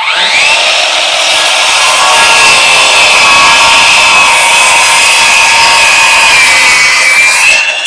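RIDGID 18V brushless 7-1/4-inch cordless circular saw spinning up and making a 45° bevel cut through a 2x4. A quick rising whine as the motor comes up to speed, then a steady high whine over the noise of the blade cutting wood. The pitch sags slightly late in the cut and rises again just before the end.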